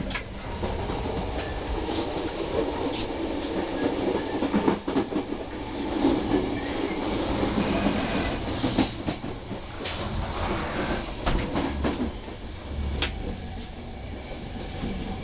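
Intercity passenger train coaches running over the track, heard from the vestibule by the door: a steady rumble of the wheels with sharp clacks over rail joints and points. A thin high wheel screech rises between about seven and ten seconds in.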